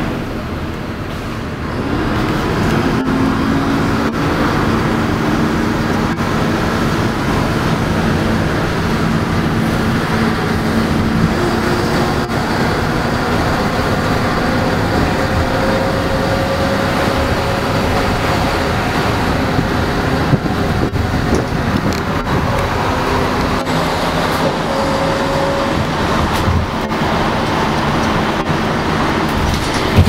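City bus engine and road noise heard from inside the bus as it drives, a steady hum with engine tones. The sound gets louder about two seconds in, where the engine's pitch rises.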